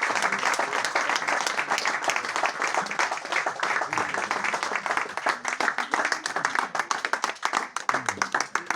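Audience applauding at the end of a song, the dense clapping thinning out into scattered single claps that die away near the end.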